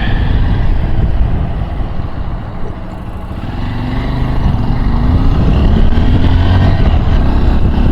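Honda XR150L single-cylinder engine running under way, easing off about three seconds in, then pulling with a steadily rising pitch as the bike accelerates. Wind rumble on the helmet-mounted microphone runs underneath.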